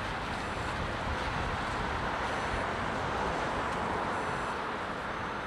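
Steady road-traffic noise, with a faint high beep sounding briefly about every two seconds.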